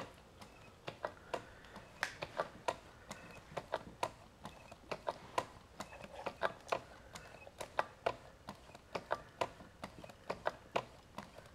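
Light, irregular clicking and ticking, several clicks a second, from a small motor-generator test rig turning slowly at low voltage.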